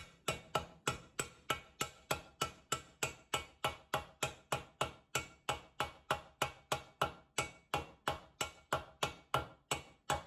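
A mallet taps steadily on a sealed ball bearing, about three blows a second, driving it into its interference-fit seat in a washing machine's cast-iron bearing housing. Each blow is a sharp knock with a short metallic ring.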